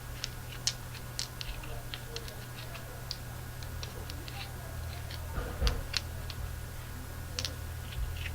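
Scattered light clicks and taps at an irregular pace, with a louder knock about five and a half seconds in, from handling a package of candy-coated malt eggs, over a steady low hum.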